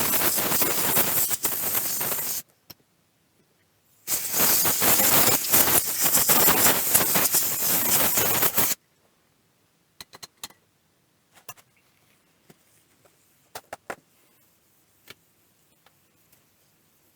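Two long bursts of loud, steady hiss, the first stopping about two seconds in and the second running about four and a half seconds, followed by scattered small clicks and taps.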